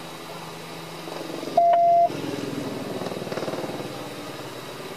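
A single loud electronic beep, one steady tone about half a second long, about a second and a half in, over the low steady running of an idling patrol car. It is followed by about two seconds of rough buzzing.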